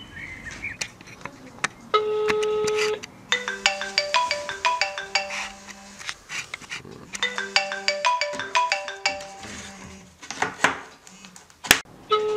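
Mobile phone ringtone playing a short plinking tune twice. Before it and again near the end comes the steady beep-pause ringback tone of the calling phone.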